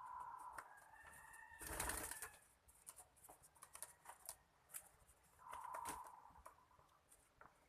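Puter doves cooing: one coo right at the start and another about six seconds in. A short, loud burst of noise about two seconds in, with light scattered clicks.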